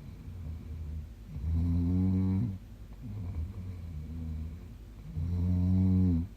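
A woman snoring in her sleep: two loud, drawn-out pitched snores about four seconds apart, with quieter snoring between them.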